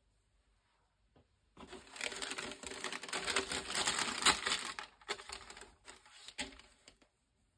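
Tissue paper crinkling and rustling as it is folded over a sneaker in a shoebox. It starts about a second and a half in, with brief pauses, and stops near the end.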